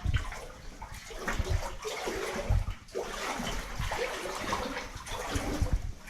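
Boots wading through standing water, sloshing and splashing with irregular heavy steps.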